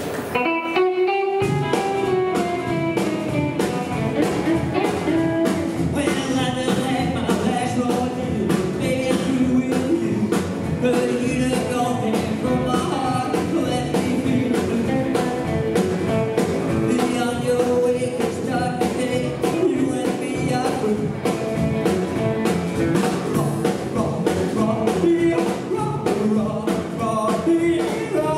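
Live rockabilly band playing a song: upright double bass, two electric guitars and a drum kit, with a male lead vocal. It opens on a lone gliding note, and the bass and drums come in about a second and a half in.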